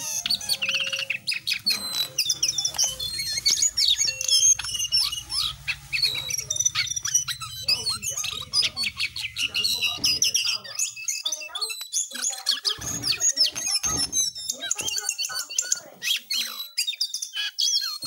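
Caged jongkangan songbird singing: a fast, varied, almost unbroken stream of high chirps and warbling notes.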